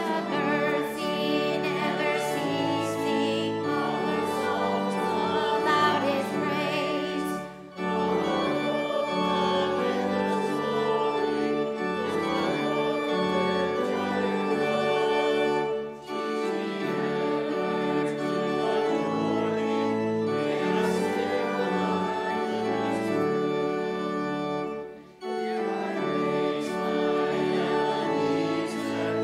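Church organ music with voices singing along, in phrases of about eight seconds with short breaks between them.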